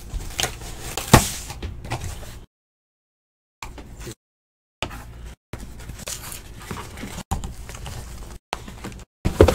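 Cardboard trading-card boxes being handled, pulled from their case and set down on a table: rustling and scraping with knocks, the loudest sharp knocks about a second in and near the end, broken by several dead-silent gaps.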